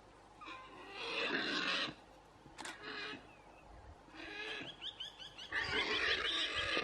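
A wild animal calling in several harsh, rasping bursts of about a second each. From about four and a half seconds in, a run of quick, short chirps joins it.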